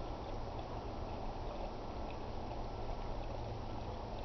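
Fuel pouring steadily from a gas can through a funnel into a snowmobile's fuel tank.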